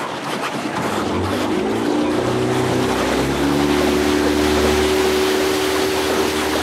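A motorboat's outboard engine speeds up over about a second, then runs steady at speed, with water rushing along the hull.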